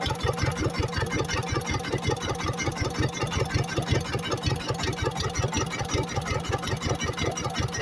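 Jiangdong ZH1135 single-cylinder diesel engine running steadily on a test run, with rapid, even firing beats.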